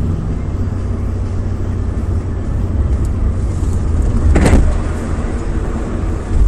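Steady low drone of a car's engine and road noise heard from inside the cabin by a dashcam, as the car slides on a snowy road. About four and a half seconds in comes a short, loud crunch as the car leaves the road into the snow.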